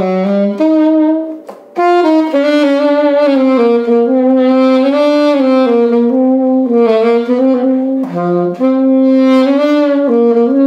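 Selmer Bundy II alto saxophone played through a Dukoff metal mouthpiece: a solo melody of held and moving notes, with a short breath break about one and a half seconds in.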